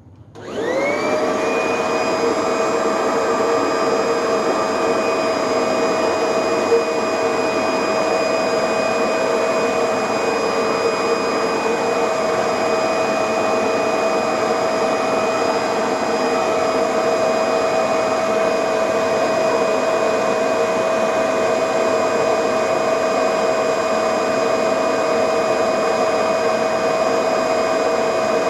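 Vacuum cleaner motor switching on, its whine rising to full speed within about a second, then running steadily at full power.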